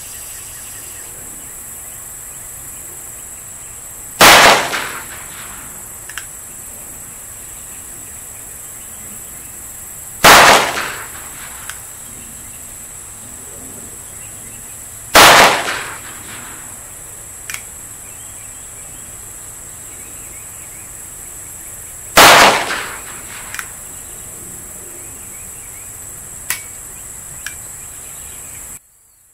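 Four .22 LR pistol shots from a North American Arms Sidewinder mini revolver with a 2.5-inch barrel, firing CCI Mini Mag rounds, spaced several seconds apart. Each is a sharp crack that dies away over about a second.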